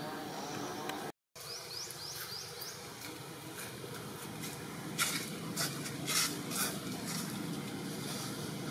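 Outdoor ambience with a steady buzz. A quick run of four short rising chirps comes about a second and a half in, and a cluster of sharp scratchy rustles comes about five to six and a half seconds in.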